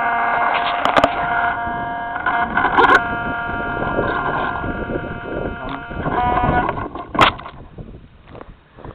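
RC plane's motor running with a steady whine, which stops about seven seconds in, followed by a few scattered knocks.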